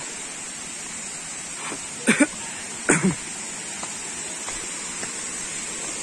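Steady rush of a shallow stream's running water, with two short human vocal sounds about two and three seconds in.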